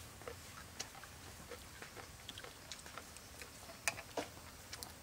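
Faint eating sounds: chewing, with scattered light clicks of chopsticks and a spoon against ceramic plates, the sharpest click a little under four seconds in.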